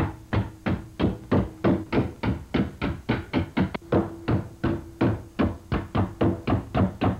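Hammer blows on a sheet-metal repair patch laid over a wooden block, a steady run of about three strikes a second, each with a short metallic ring; the patch is being bent to match the car body's original shape.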